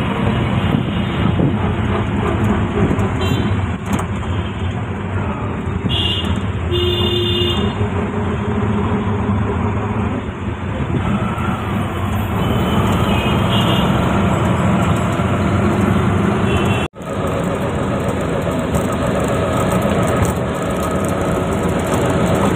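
Auto-rickshaw engine running under way, heard from inside the open passenger cabin, with street traffic around it and short horn toots a few times.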